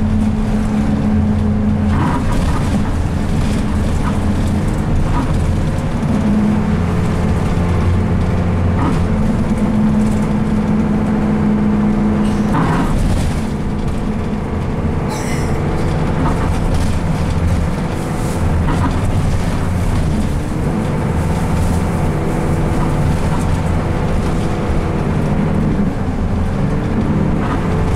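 DAF SB120 Wright Cadet single-deck bus heard from inside the passenger saloon while driving: the engine and Allison automatic gearbox run steadily, the engine note shifting in pitch a few times, with occasional knocks and rattles from the body and fittings.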